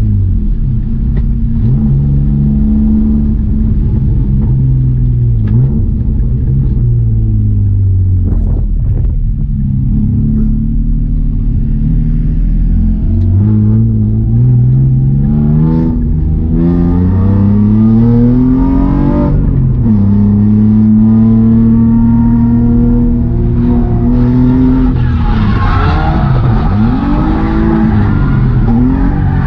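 BMW E36 325i's M50B25 straight-six through a straight-through blast-pipe exhaust, revving up and dropping back again and again as the car is driven hard. Near the end a hiss of tyre noise rises over the engine.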